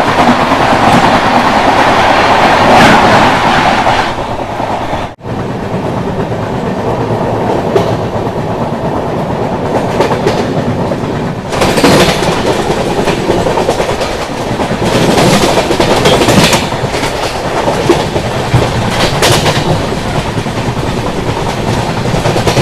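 Moving express train heard from the open doorway of a coach: a loud, steady rush of wheels on rails and moving air, with clickety-clack of rail joints. For the first four seconds a train passing on the next track makes the rush louder, with a brief dropout about five seconds in.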